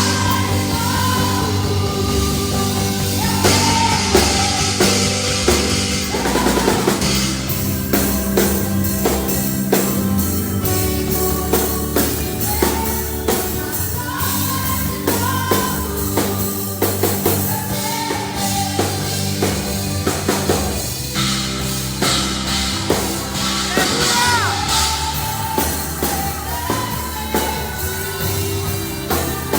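A rock band playing: a drum kit keeps a steady beat under low bass notes and a singing voice.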